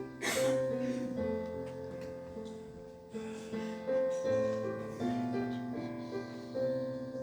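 Piano or keyboard playing slow sustained chords: the instrumental introduction to a worship song.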